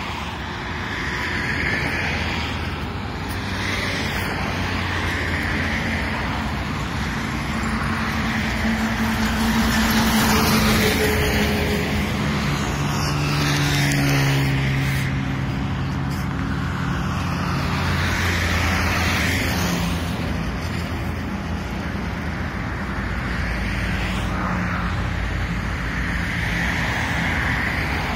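Road traffic: trucks and other motor vehicles running by on a highway. One heavy vehicle's engine grows loudest about halfway through, then drops in pitch as it passes.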